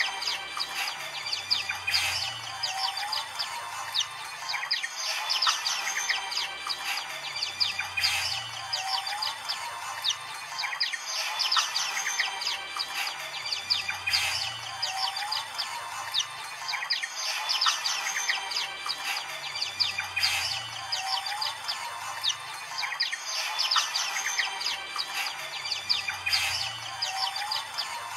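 A flock of Oriental white-eyes chirping and trilling together in a dense, overlapping chorus. Under it is a faint low sound that repeats about every six seconds.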